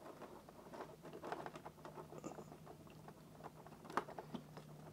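Small metal tweezers picking and scraping at the parts of an open wristwatch: faint irregular ticks and scratches, with a sharper click about four seconds in.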